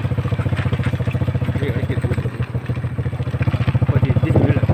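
An engine running steadily with a fast, even putter, growing a little louder near the end.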